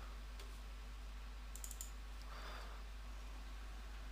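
A quick cluster of computer mouse clicks about one and a half seconds in, over a steady low hum.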